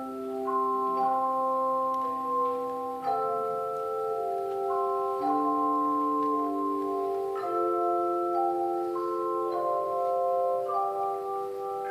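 A handbell choir playing a slow piece: several bells ringing at once in sustained chords, with new notes struck every second or two as the chord changes, a low bell held for the first three seconds.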